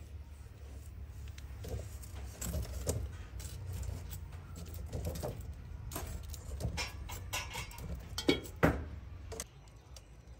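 Irregular clinks and knocks of cooking utensils and dishes being handled, loudest a little after eight seconds in, over a steady low hum that falls away near the end.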